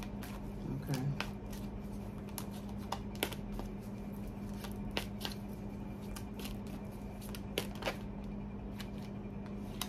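A deck of tarot cards being shuffled by hand, with irregular sharp clicks of the cards against each other, over a steady low hum.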